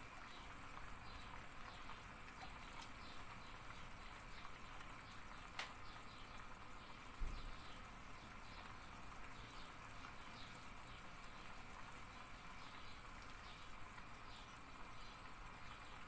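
Wire whisk scraping faintly against a metal pot in repeated strokes as it stirs thickening milk pudding. There is a sharp click about five and a half seconds in and a low thump about seven seconds in.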